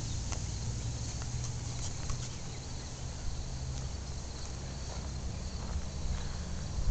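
Soft footsteps of someone walking across a yard, over a steady low rumble on the microphone.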